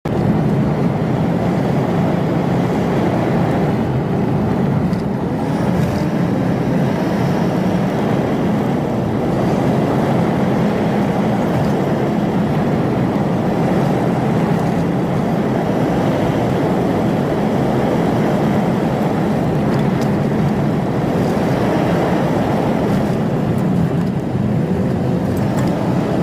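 Cat 309CR excavator with a mulcher head running, a loud, steady heavy-machine drone that starts abruptly.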